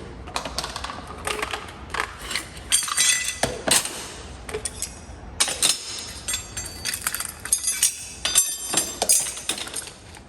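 Metal hand tools and parts clinking and clattering as they are handled and put back into a box, in irregular bursts with short metallic ringing.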